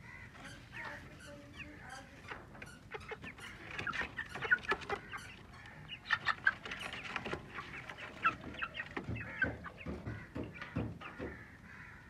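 Chickens clucking in a wire cage as they are handled, with scattered short scuffs and knocks, busiest a few seconds in.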